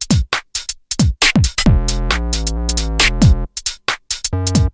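Electronic background music: a drum-machine beat of deep kicks that drop in pitch and sharp hi-hat ticks, over held synthesizer chords.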